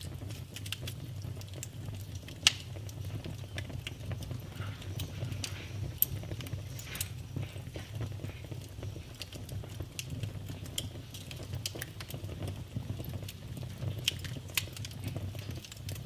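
Campfire burning: wood crackling with irregular sharp pops over a steady low rumble of the flames. The two loudest pops come about two and a half and six seconds in.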